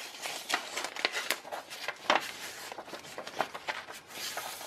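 A sheet of printer paper and plastic binder pages being handled as the paper is slid behind a page: irregular rustling and crinkling with light taps.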